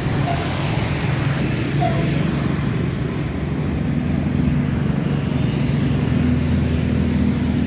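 Tour bus engine running close by, a low steady hum that grows a little stronger about halfway through.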